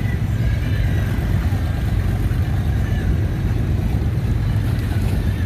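Steady low rumble of motorboat engines running on open water, mixed with wind buffeting the microphone.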